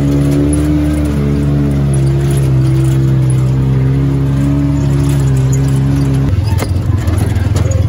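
ATV engine running steadily while riding a dirt trail; about six seconds in the engine note drops and turns rougher, with a sharp knock just after.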